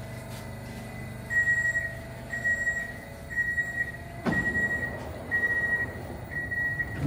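Metro train's door-closing warning: a high beep sounding six times, about once a second, with a sharp knock about four seconds in and a louder bang near the end as the sliding doors shut.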